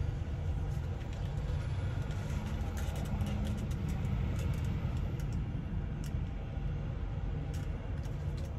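Steady low rumble of a semi truck's engine idling, heard inside the cab, with a few faint clicks of a headset being handled.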